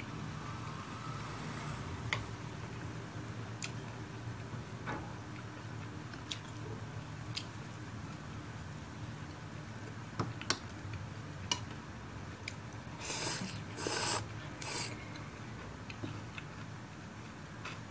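Wooden chopsticks tossing rice noodles, grilled pork and herbs in a ceramic bowl: scattered light clicks of chopsticks and a metal spoon against the bowl over a steady low hum, with three short louder rustling bursts about three-quarters of the way through.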